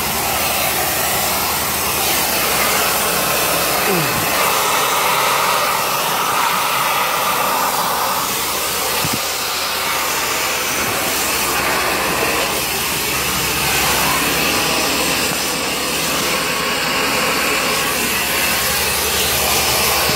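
Steady, loud rush of air-moving equipment running inside a bridge-painting containment.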